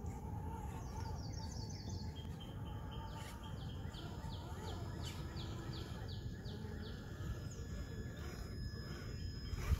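A songbird singing a run of short, quick, falling chirps, about three a second, over a steady low rumble.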